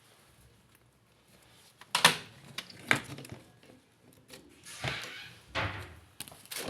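Handling noises: a few sharp knocks and clacks, the loudest about two seconds in, with sliding scrapes between them, as of appliance parts or a door being moved.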